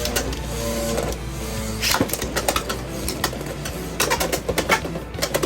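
Two Beyblade X spinning tops, HellsScythe 4-60 Taper and WizardArrow 4-80 Ball, battling in a plastic stadium. From about two seconds in, rapid sharp clicks and knocks come from the tops colliding and rattling, thickest near the end, over steady background music.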